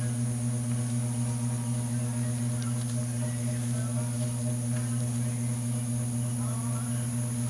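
Steady low electrical hum with a faint high-pitched whine above it, and a few faint clicks scattered through.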